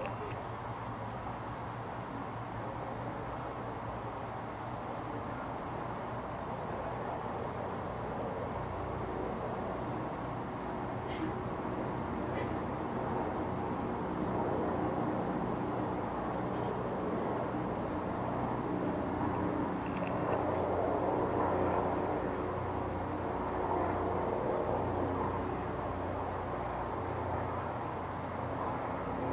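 Crickets chirping in a steady, high, pulsing trill over a low background rumble that swells somewhat in the middle.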